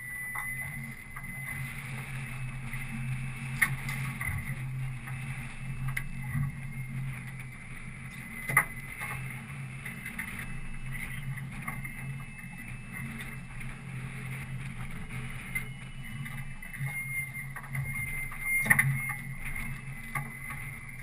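Boat motor running steadily, with a few sharp knocks now and then.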